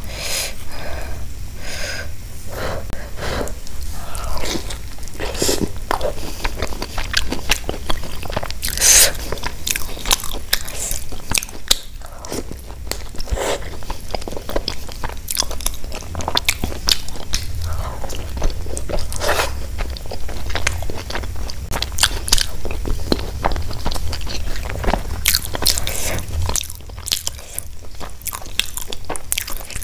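Close-miked eating: a person biting and chewing gobi paratha scooped with potato curry, with many short, irregular crunches and clicks of the mouth.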